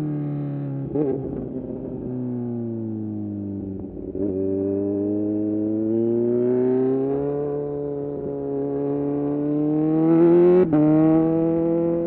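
Kawasaki Z900's inline four-cylinder engine through a full titanium SC-Project exhaust: the revs fall as the bike slows, with two brief rough spots about one and four seconds in, then climb steadily under acceleration. Near the end a gear change cuts the note off for an instant, and it carries on at a lower pitch.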